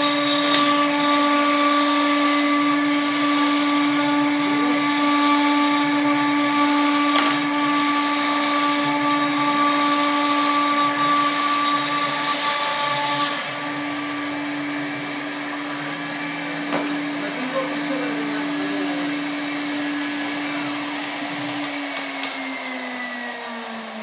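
CNC router spindle running with a steady high whine while its bit cuts grooves in a wooden board, with cutting hiss over it. The cutting noise stops about halfway through while the spindle keeps running, and near the end the whine falls in pitch.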